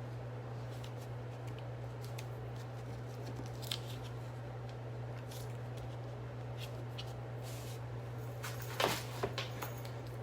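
Small ticks and rustles of paper and card being handled at a crafting table, with a short burst of louder crinkling near the end, over a steady low hum.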